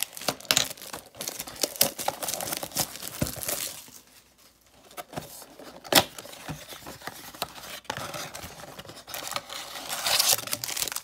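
Trading-card packaging being torn open and crinkled by hand, with a dense run of rustles and small clicks, a quieter spell in the middle and one sharp tap about six seconds in.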